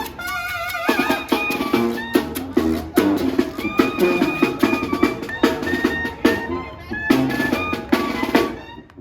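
Music with a drum kit beat and a melody over it, fading away and stopping just before the end.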